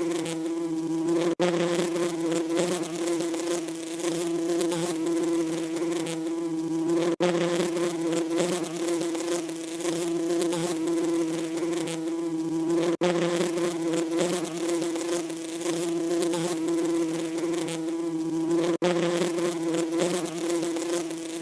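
Bees buzzing steadily in one droning pitch, with a brief cut about every six seconds.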